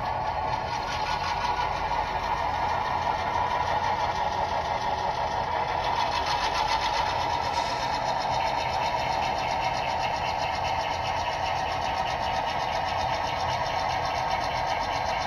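Model railroad train running slowly through a switching move: a steady small-motor whir with fast, even clicking from the running gear and wheels on the track.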